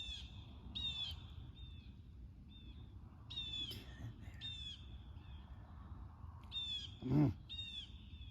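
Birds calling over and over with short, high, downward-bending calls, often in quick pairs, heard as laughing. A brief louder, lower sound comes about seven seconds in.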